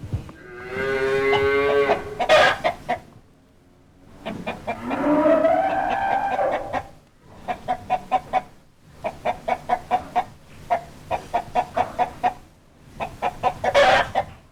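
Chickens: two long drawn-out pitched calls, then groups of rapid clucks, with a loud squawk near the end.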